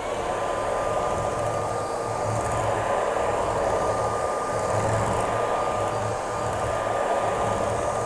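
Xiaomi Mi Vacuum Cleaner Light cordless stick vacuum running on its maximum setting: a steady high motor whine over a strong rush of sucked air.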